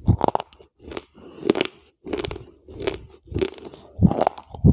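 A person chewing hard, crunchy pieces with a clip-on microphone held right at the mouth: a quick, irregular run of crisp crunches, two or three a second.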